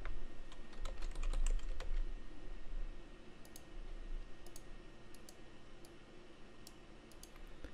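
Typing on a computer keyboard: a quick run of keystrokes in the first two seconds, then a few single, scattered clicks.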